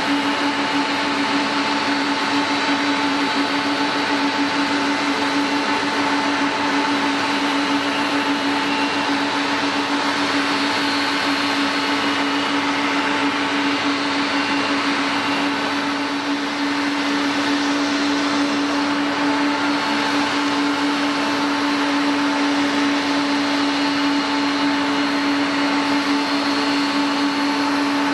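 Jet airliner engines running steadily: an even roar with a strong low hum and a fainter higher whine, holding level throughout without rising or falling.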